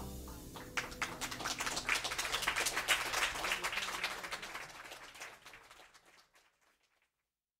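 Audience applauding after music ends: dense, many-handed clapping that swells and then fades out over several seconds.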